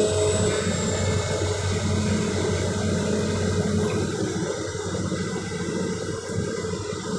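Excavator diesel engines running steadily with a constant low hum under a rushing noise.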